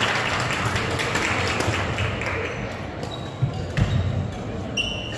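Gymnasium noise during a badminton match: background voices, a few low thuds, and two short high squeaks, about three seconds in and near the end, typical of shoes on a hardwood court.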